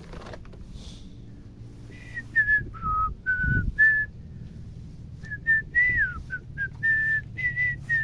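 A person whistling a tune, a string of short clear notes starting about two seconds in, with one note sliding down near the middle.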